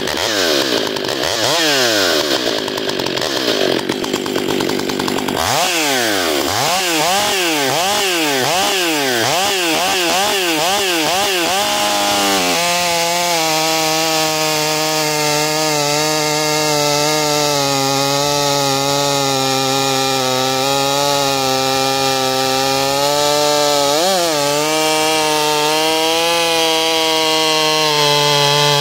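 Stihl MS 661 C two-stroke chainsaw revved up and down about once a second several times, then held at a steady high pitch under load as the square-ground chain bucks dry, fire-killed spruce. Later the pitch briefly sags and recovers once.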